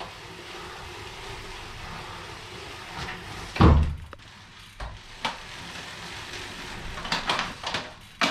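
Bicycle rollers spinning with a steady hum. About three and a half seconds in, a heavy thump as the wobbling rider comes off and puts a foot down. Several sharp clicks and knocks follow near the end.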